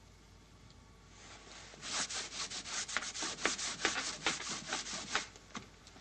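A chalk-written blackboard being rubbed clean: quick back-and-forth wiping strokes, about five a second, starting about two seconds in and stopping shortly before the end.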